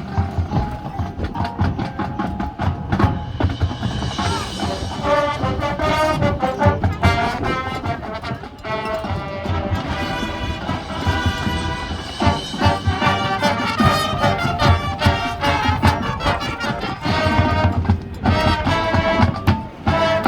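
Marching band playing a loud full-band passage, brass chords over regular drum strikes, cutting off sharply at the end.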